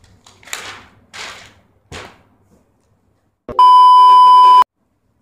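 TV colour-bars test tone: a loud, steady beep near 1 kHz, about a second long, starting with a click and cutting off suddenly. Before it come three short bursts of hiss.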